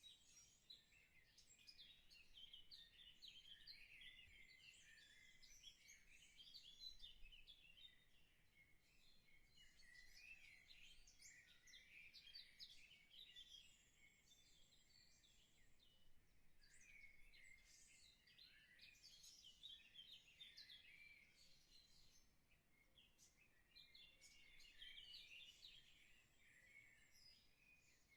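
Faint chirping of several birds, many short calls in loose clusters with brief lulls, and a few thin high trills.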